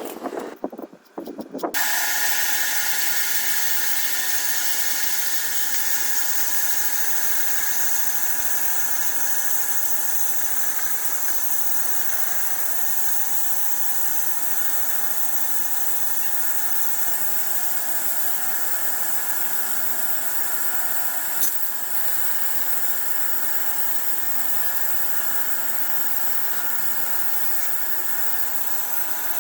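A power tool's motor running steadily and without a break, starting about two seconds in.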